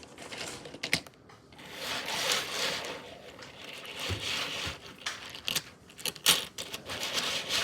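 3D-printed plastic star fidget toy being handled, its plastic parts clattering and rustling, with several sharp clicks.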